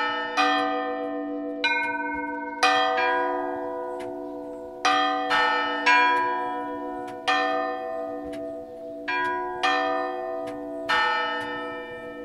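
Bells of several different pitches struck one at a time in an uneven sequence, about ten strikes, each ringing on and fading under the next over a steady low hum.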